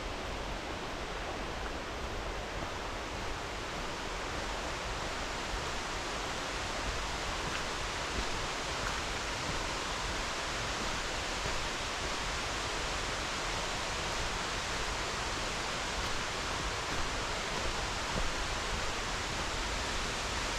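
Steady rushing of fast-flowing mountain river water, an even wash of sound with no breaks.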